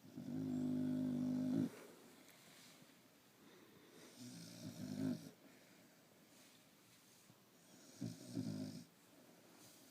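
Snoring: three snores about four seconds apart, each a buzzy, pitched rasp, the first the loudest and longest at about a second and a half.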